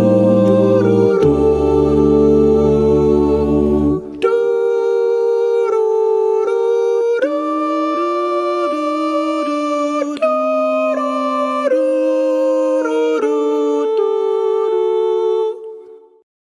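A cappella vocal group singing the closing chords of a song. Full voices with a deep vocal bass for about four seconds, then the bass drops out and the upper voices hum a slow series of held chords that fade out near the end.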